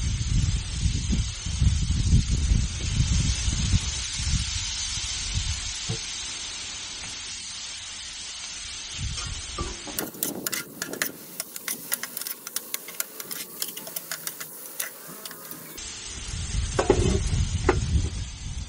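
Chicken pieces sizzling on a Blackstone flat-top griddle, a steady hiss with gusty low rumble from wind on the microphone. From about ten seconds in, for about six seconds, the sizzle turns into a sharper, dense crackle as steam rises off the griddle, then the steady hiss returns.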